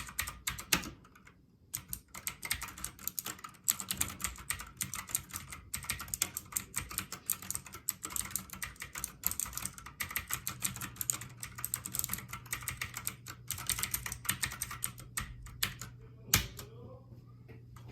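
Fast typing on a Havit gaming keyboard: a dense stream of key clicks after a short pause, stopping near the end with one louder single keystroke.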